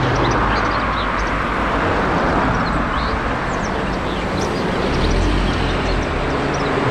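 Double-decker city bus driving past on a street, its engine and road noise steady, with the low rumble swelling about five seconds in as it passes closest. Birds chirp in the background.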